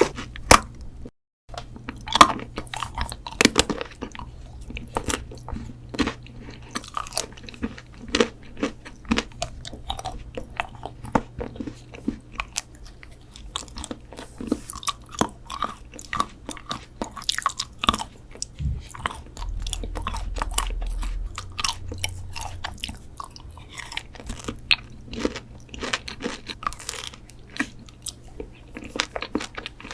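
Close-miked eating of sweets: bites and chewing with many crisp, sharp crunching clicks, broken by a brief dropout about a second in.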